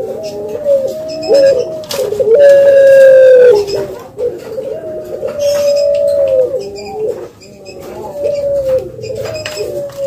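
Spotted dove cooing: a run of low, drawn-out coos with small steps in pitch, the loudest and longest coo a few seconds in.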